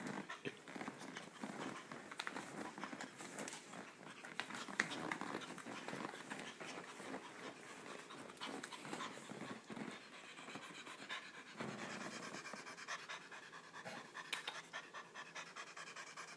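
Cat panting hard after vigorous play, with scattered scratching and rustling as it tumbles after a feather toy on the rug.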